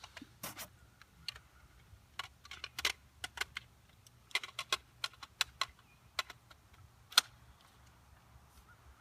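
Irregular clicks and light knocks of a full-metal airsoft gun being handled, its parts worked by hand, thickest in the middle of the stretch with one sharp click about seven seconds in.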